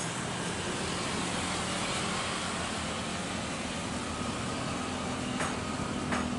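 Jet airliner engines running at takeoff power, a steady even roar that holds level throughout, with a couple of short clicks near the end.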